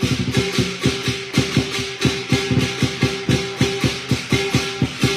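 Lion dance drum beaten in a fast, dense run of strokes, about five a second, with cymbals clashing throughout: the percussion that drives a lion dance.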